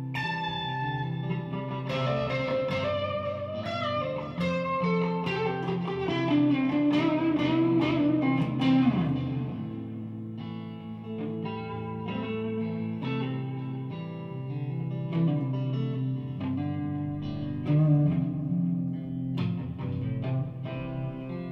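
Amplified Stratocaster-style electric guitar played solo: picked single notes and chords over sustained low notes, with a melody that slides down in pitch around the middle.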